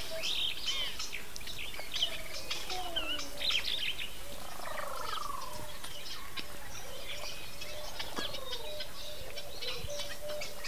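Several wild birds calling: many short chirps and whistles, some sliding down in pitch, over a faint steady outdoor background, with a held steady note coming in near the end.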